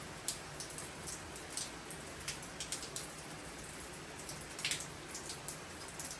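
Rain pouring down: a steady hiss with irregular sharp drops tapping on a hard surface, several a second, and a brief cluster of louder taps near the end.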